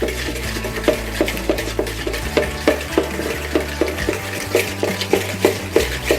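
Butter and sugar being creamed by hand in a bowl, the utensil scraping and knocking against the bowl in regular strokes about three times a second.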